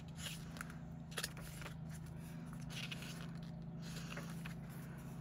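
Faint rustles of a glossy album photo book's paper pages being turned by hand, several times, over a steady low hum.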